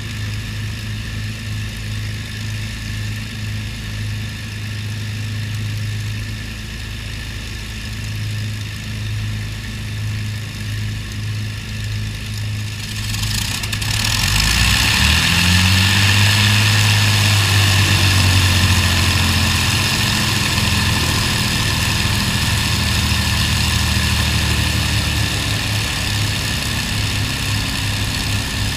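Avro Lancaster's Merlin V-12 engines on a ground run: a steady low throb of an engine already idling, then about halfway through another engine is started. It catches with a rising note and settles into a louder, steady idle.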